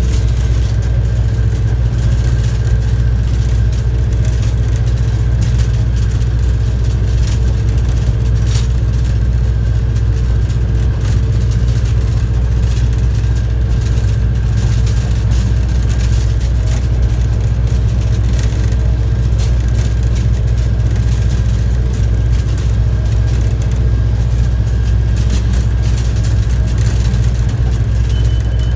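Train locomotive running steadily along the track: a constant low rumble with thin steady tones over it and occasional clicks.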